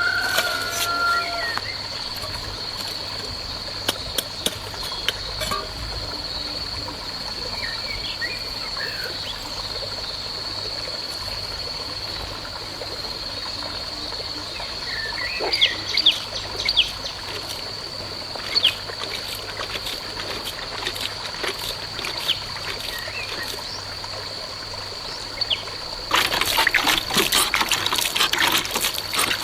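Water trickling and splashing under a steady high-pitched insect drone, with a few short bird-like chirps. A denser run of splashing starts near the end.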